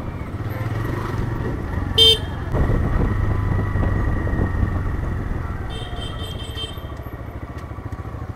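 TVS Raider 125 motorcycle running steadily on the road. About two seconds in a vehicle horn gives one short, loud blast, and a higher-pitched horn beeps in quick pulses for about a second past the middle.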